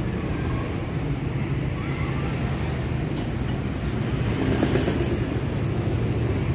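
A steady low engine hum with a background hiss.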